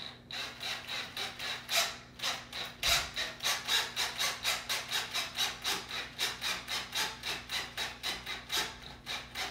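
Cordless drill slowly driving a screw into the wooden spindle frame of a chair, making an even rasping pulse about four times a second with a faint high whine under it.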